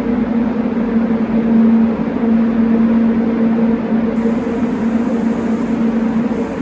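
Steady machine hum with a constant rush of air, typical of a paint spray booth's extraction fan running.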